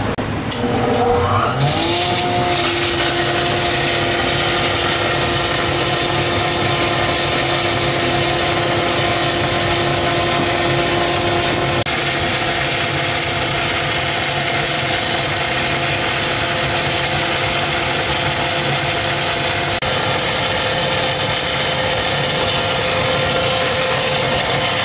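Soy milk machine's motor spinning up about a second in, then running steadily, while soy milk pours from its steel spout and splashes into a plastic bucket.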